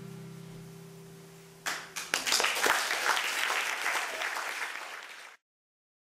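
A last acoustic guitar chord rings and fades, then audience applause breaks out about two seconds in and is the loudest sound. The applause cuts off abruptly near the end.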